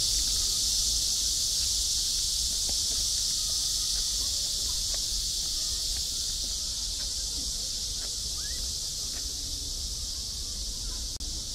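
A steady, high-pitched chorus of insects that slowly grows fainter, with a few faint chirps and soft ticks beneath it.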